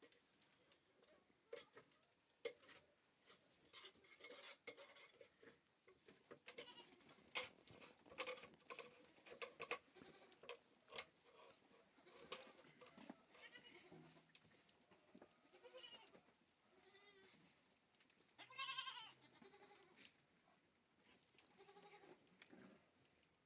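Goats bleating, faint, with one louder quavering bleat about three-quarters of the way through, among scattered light clicks and knocks.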